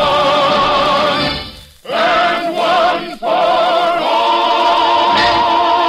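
Choir and orchestra singing the closing bars of a rousing march song with vibrato. There is a brief drop about two seconds in, then a long held final note.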